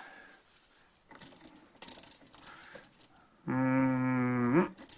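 Small metal clicks and rattles of needle-nose pliers bending a wire onto an electrical outlet's screw terminal. Near the end comes a steady pitched hum lasting about a second, which rises in pitch as it stops.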